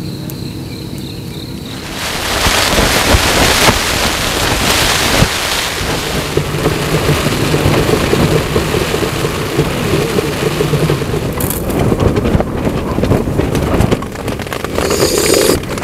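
Heavy rain pouring, with thunder rumbling; it grows louder about two seconds in.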